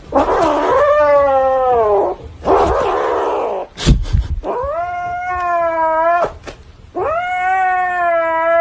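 Domestic cat caterwauling in warning: a harsh hissing yowl that falls in pitch, a second harsh stretch and a sharp knock, then two long drawn-out yowls.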